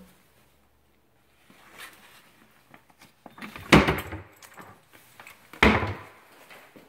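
Wooden kitchen cabinet doors being handled, with two loud knocks about two seconds apart and faint rustling between them.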